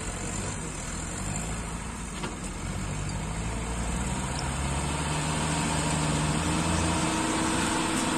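Mahindra 585 DI XP Plus tractor's four-cylinder diesel engine pulling a fully loaded trolley, a steady drone that grows louder as the tractor approaches.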